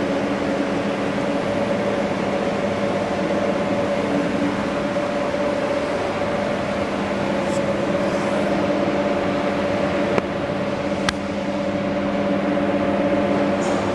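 Hydraulic pump and motor of a Durma HAP 25/60 CNC press brake running with a steady hum. Two sharp clicks come about ten and eleven seconds in.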